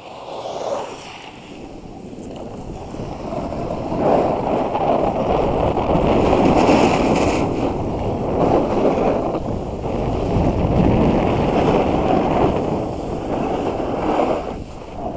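Wind rushing over an action camera's microphone as the rider slides downhill, mixed with the hiss of snow scraping under the rider's board or skis. It grows louder about four seconds in as speed picks up.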